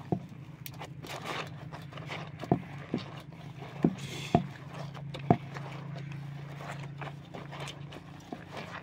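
Hands scrubbing and squeezing a cloth in soapy water in a metal basin: wet rubbing and squelching, broken by a few sharp knocks.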